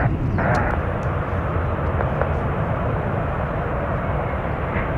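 Steady low rumble and hiss of a jet airliner's engines, with no change in level.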